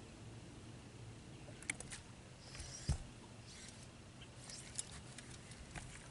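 Faint clicks and handling noises from a spinning reel and rod while a hooked fish is played on a bent rod, with one sharper knock about three seconds in, over a low steady hum.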